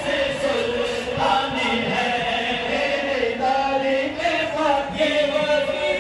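Qawwali: voices singing together in long, wavering held notes.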